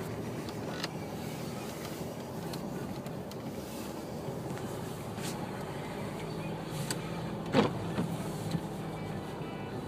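Vehicle engine droning steadily, heard from inside the cab as it ploughs through deep snow. Scattered light clicks and one sharp, loud knock about three quarters of the way through, with a couple of smaller knocks after it.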